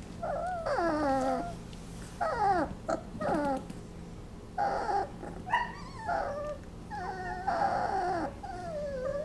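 Twenty-day-old basset hound puppies whimpering and squeaking in their sleep: a string of short, high, wavering cries, many sliding down in pitch, following one another every second or so.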